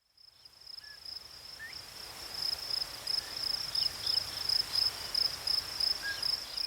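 An insect's high-pitched, pulsing trill, steady throughout, fading in from silence over the first two seconds, with a few faint short rising chirps over it.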